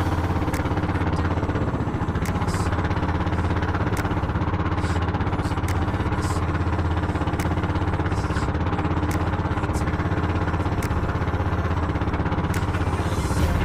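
Outrigger fishing boat's engine running steadily at a constant speed, with a few faint ticks over it.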